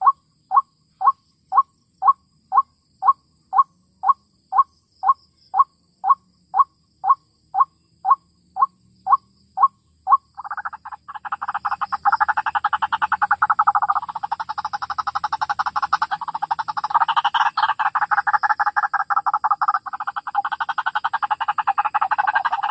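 White-breasted waterhen (ruak-ruak) calls: a regular series of short notes, about two a second, then from about ten seconds in a fast, continuous chattering chorus.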